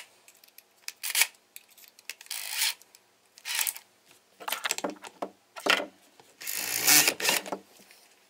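Cordless drill handled while a bit is changed in its chuck: a series of short rasping and clicking bursts about once a second. Near the end comes a louder burst of about a second, the drill boring a small hole through the plastic bucket wall.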